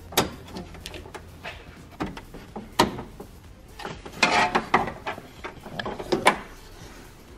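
A flathead screwdriver prying plastic push-clips out of a 2018 Toyota Tacoma's grille: a few sharp plastic clicks and knocks, with a quick burst of rattling clicks about four seconds in.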